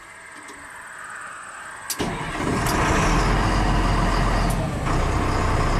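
Diesel engine of a 1996 Stewart & Stevenson M1078 LMTV army truck starting: about two seconds in it turns over and fires, then settles into a steady, deep-toned idle.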